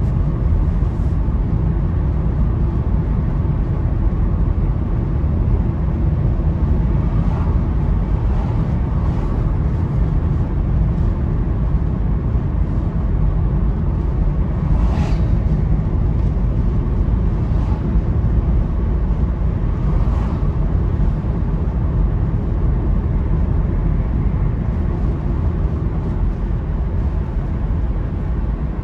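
Steady low road and engine rumble heard inside a moving car's cabin, with a brief whoosh about halfway through as an oncoming bus passes.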